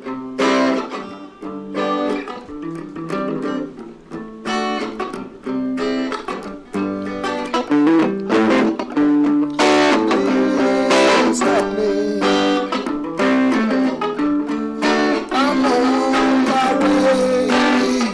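Guitar playing a lively run of picked notes, live music with a steady pulse.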